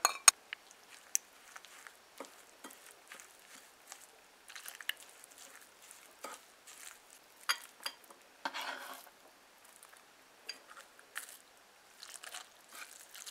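Metal spoon scraping and clicking against a ceramic plate while stirring ground spices into a pounded garlic paste: faint, scattered light scrapes and taps.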